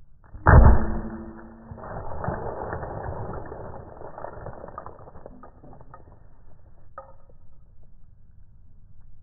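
A heavy anvil slams down onto a carton of eggs on a stone slab: one loud, deep thud about half a second in, with a brief ringing tone. A few seconds of crunching and rattling follow and die away, with a last sharp crack near seven seconds.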